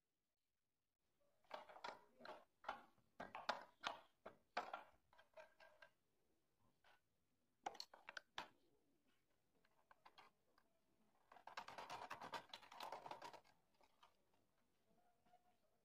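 Faint clicks, knocks and rattles of hand tools and metal hardware being handled while a wrench and fingers work a nut on a threaded rod. A quick run of clicks comes in the first few seconds, two sharp clicks fall near the middle, and a denser scraping rattle lasting about two seconds comes later.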